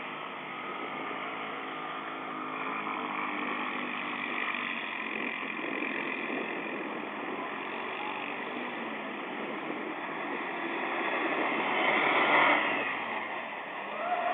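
Dune buggy engines running on the sand, a steady motor noise that swells to its loudest about twelve seconds in and then falls away.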